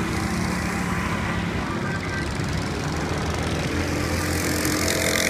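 Go-kart engine running hard as the kart laps the circuit, a steady buzz that shifts in pitch through the corners and drops lower partway through.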